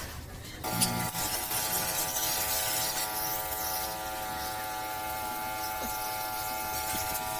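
A small electric motor starts up about half a second in and then runs at a steady speed, giving an even buzzing whine.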